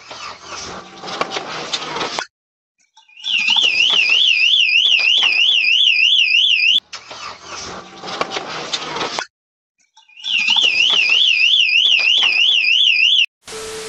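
Car alarm siren going off: a high warbling wail sweeping up and down about three to four times a second, in two long spells, alternating with stretches of a harsher rattling tone, with short breaks between.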